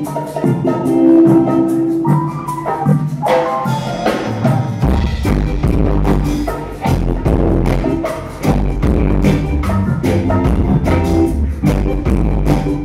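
Live dub reggae band playing an instrumental: a steady drum beat under keyboard and guitar chords, with a deep electric bass line coming in about five seconds in.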